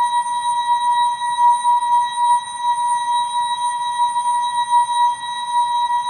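The ASKfm app's notification sound effect slowed down and stretched out, heard as a steady high-pitched drone with fainter overtones above it and a hiss underneath, wavering slightly in loudness.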